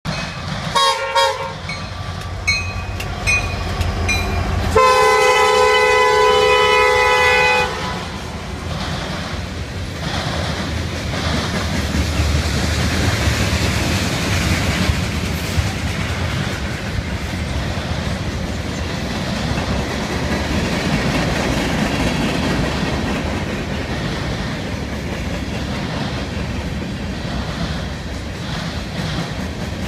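CSX freight train's diesel locomotive horn sounding a few brief notes, then one long loud blast about five seconds in that lasts nearly three seconds. After it, the steady rumble and clatter of loaded freight cars, tank cars and coal hoppers, rolling past on the rails.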